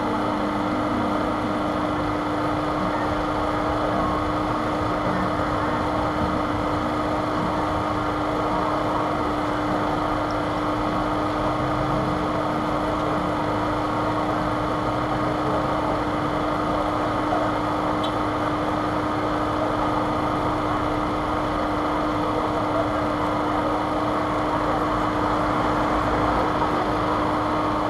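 A steady mechanical hum holding one constant low tone, with no change in level.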